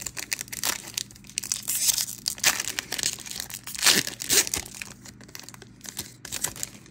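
Plastic Magic: The Gathering booster pack wrapper being torn open and crinkled: a quick run of crackles, loudest in the middle, stopping shortly before the end.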